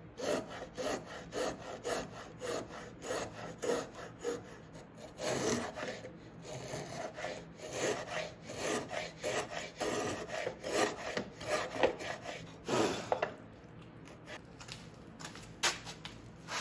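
Router plane scraping wood from the bottom of a dovetail dado in short, shallow strokes, about two a second. The strokes stop about thirteen seconds in, and a couple of clicks follow.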